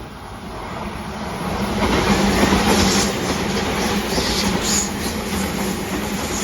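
N-gauge model of a Tobu 100 series Spacia train running on layout track, with a steady motor hum and the rumble of its wheels on the rails. It grows louder over the first two seconds as it approaches, then runs on steadily.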